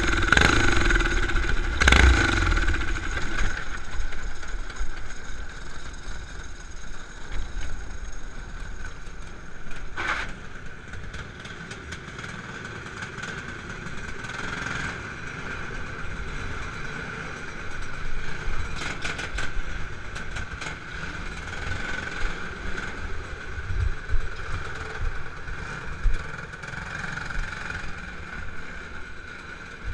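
Racing kart's small engine, louder for the first few seconds, then dropping to a quieter steady idle, with an occasional knock.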